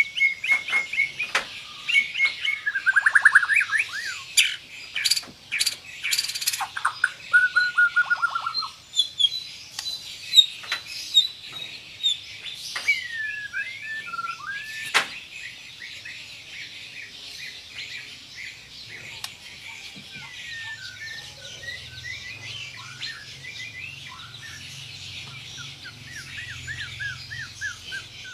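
White-rumped shama (murai batu) singing a varied song of tight, rapid trills, whistles and sharp, loud 'shot' notes. The song is busiest and loudest in the first half and softer after about fifteen seconds.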